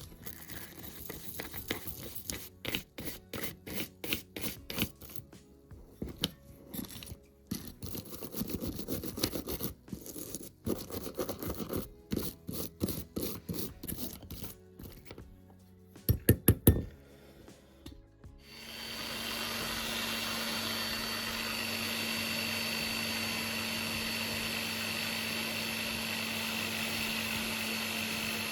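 Hand work on metal tool parts, irregular scraping and clicking with a few sharp knocks near the middle. Then, about eighteen seconds in, a small electric power tool starts and runs steadily with a constant hum and a high whine.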